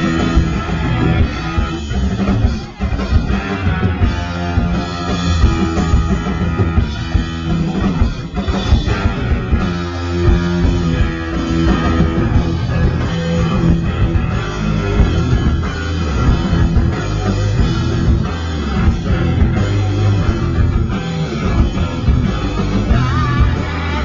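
Live rock band playing loud, with distorted electric guitars, bass and a drum kit keeping a steady beat.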